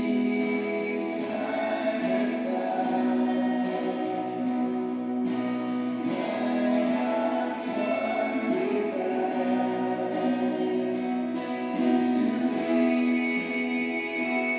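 A sung worship song: voices singing held notes over guitar accompaniment.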